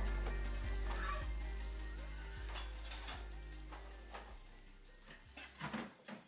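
Water running from a kitchen faucet into a sink, a steady hiss with a few faint knocks, under soft background music. Both fade, falling away near the end.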